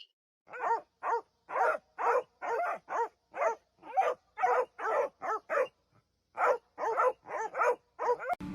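A dog barking over and over in quick runs, about two to three barks a second, with a short break about two-thirds of the way through.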